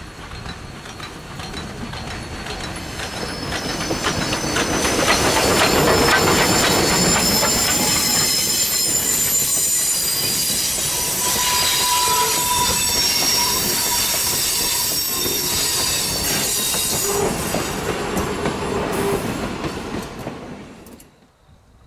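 Steam train hauled by Queensland Railways C17-class locomotive 971 passing close by on a curve: the rolling of wheels over the rails grows loud as the locomotive approaches, then the carriages clatter past with steady high-pitched wheel squeal from the curve. The sound cuts off suddenly near the end.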